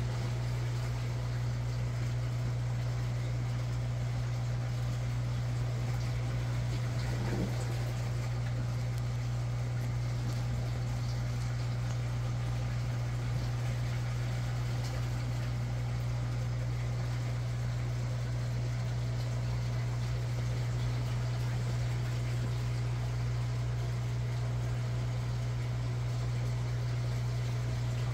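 Steady low hum of an aquarium pump, with a faint even hiss of moving water.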